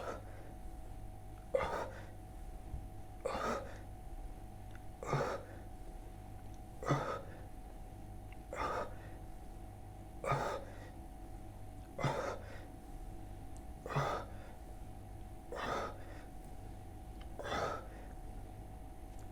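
Heavy, forceful breathing of a person doing push-ups: a sharp, noisy breath about every second and three quarters, about ten in all, in a steady rhythm with the repetitions.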